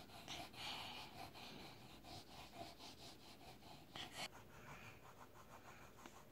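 Crayon scribbling back and forth on a colouring-book page: faint, quick scratchy strokes, a little louder for a moment about four seconds in.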